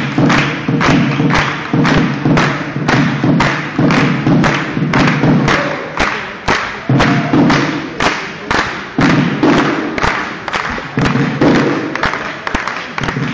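Badminton spectators beating out a steady rhythm in unison, about two and a half sharp beats a second, over a steady low hum of crowd sound.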